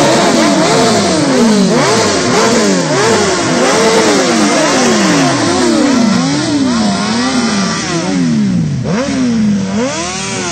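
Several sportbike engines revved over and over while standing still. The throttle blips rise and fall about three times every two seconds and overlap one another, with a slower, higher rev near the end.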